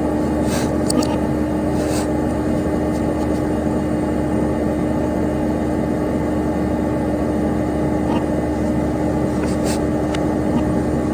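Dell Dimension XPS P100c desktop computer running: the steady whir of its cooling fan and spinning hard drive, with a constant hum and a few faint clicks.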